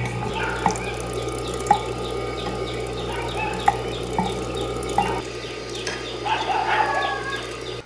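Electric meat grinder running with a steady hum as pork is pushed through it, with irregular sharp clicks and high chirping over the hum.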